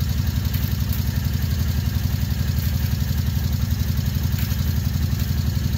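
ATV engine idling steadily with an even, low pulse.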